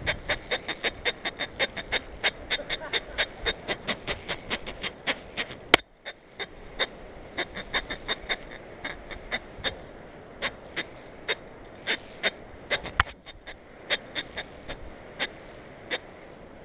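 Rapid, sharp metallic clicks, about three to four a second at first and sparser after about halfway, as a Petzl Tandem rope pulley is hauled hand over hand along a steel zipline cable. The pulley is made for rope rather than cable, and the rider has stalled mid-line.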